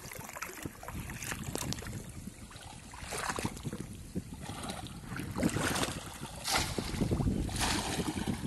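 Shallow floodwater splashing and sloshing as men wade and plunge bamboo polo fish traps into it, in irregular bursts that grow stronger in the second half. Wind rumbles on the microphone.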